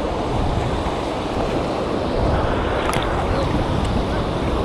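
Steady rush of fast-flowing river water around a kayak, with wind buffeting the microphone.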